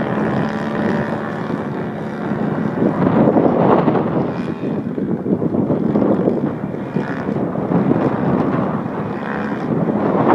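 Wind buffeting the microphone in loud, uneven gusts. Under it, the steady drone of the model plane's DLE 111 twin-cylinder gas engine is heard for the first couple of seconds, then is lost in the wind.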